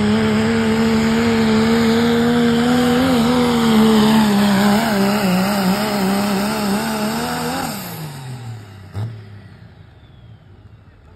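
Diesel four-wheel-drive pickup truck pulling a sled, its engine held at high revs under heavy load with a wavering pitch. About eight seconds in, the revs fall away and the sound drops off as the pull ends. A single sharp knock follows about a second later.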